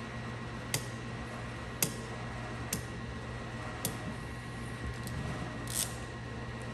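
A series of short, sharp clicks or snips, about one a second, then a brief rustle near the end, over a steady electrical hum.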